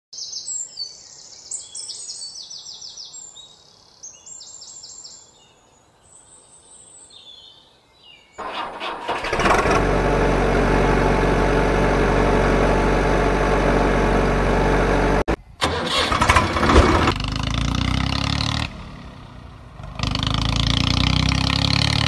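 Birds chirping faintly, then a vehicle engine starting up about eight seconds in and running steadily and loudly. It is broken by a sudden cut and later a short drop before it runs on again.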